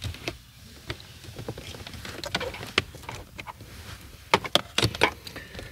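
Hands working a wiring lead through loosened plastic centre-console trim: steady rustling and handling noise with scattered clicks and light plastic knocks, a few sharper ones about four to five seconds in.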